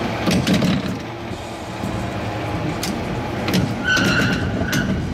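San Francisco cable car rolling along, a steady rumble with repeated clanks and rattles, and a short ringing tone about four seconds in.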